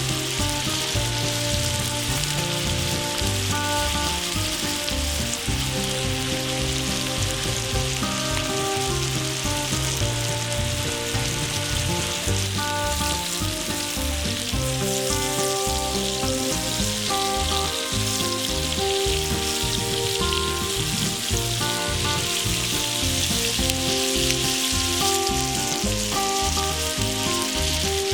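Steak frying in a hot pan, a steady loud sizzle, with background music playing over it.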